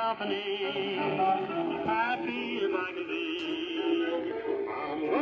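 Music with a singing voice from an AM shortwave broadcast (WBCQ, 41 m band), heard through a homebrew all-discrete superhet receiver's loudspeaker. The sound is thin, with nothing above about 4 kHz, as the receiver's 10 kc-wide AM filter passes it. A single short click about three and a half seconds in.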